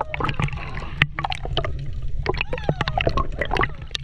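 Underwater sound heard through a submerged camera: a steady low rumble of moving water with many sharp clicks and crackles scattered throughout.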